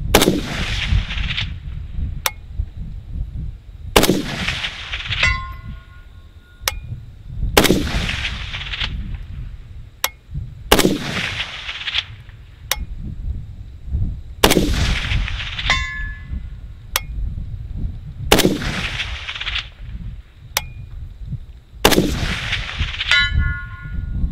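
Slow, aimed semi-automatic fire from a WBP Fox AK-pattern rifle in 7.62x39, shooting Wolf 123gr Polyformance steel-cased FMJ. There are seven shots, about one every three and a half to four seconds, each with a long rolling echo. After several of the shots, a little over a second later, a faint metallic ring follows: a hit on a steel target at 300 yards.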